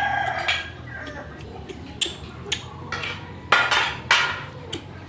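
Household pots and basins clattering: several sharp knocks, the loudest about three and a half and four seconds in, after a brief voice at the start.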